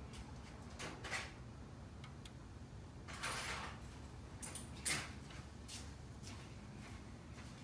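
Faint clatter of hand tools being sorted while a short socket extension is fetched: scattered light clicks, a brief scrape about three seconds in, and a sharper click near five seconds.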